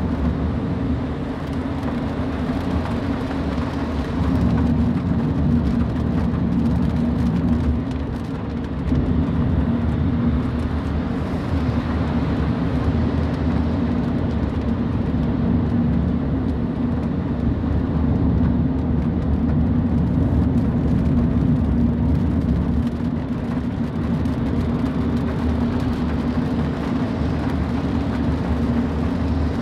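Car driving in the rain, heard from inside: a steady low engine and tyre drone, with faint ticks of rain on the car.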